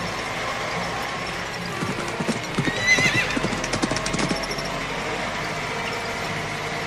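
Cartoon sound effects: a whinny-like animal call with a wavering pitch about three seconds in, over a run of hoof-like clip-clop knocks, with music underneath.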